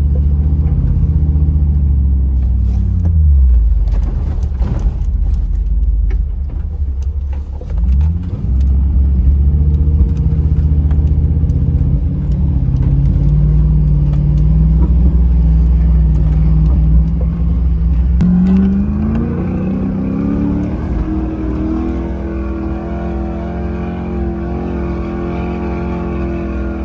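Off-road vehicle's engine running hard under load. Its pitch dips briefly twice in the first eight seconds, then climbs a little after two-thirds of the way and holds there.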